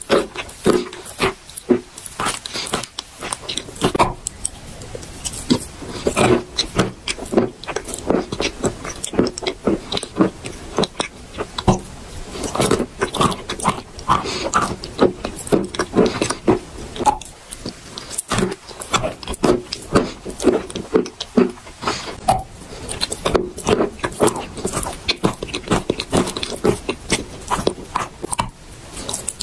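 A pink block of chalk being bitten and chewed right at the microphone: a fast, irregular run of dry and wet crunches, with pasty mouth sounds as the chalk is ground into a white paste.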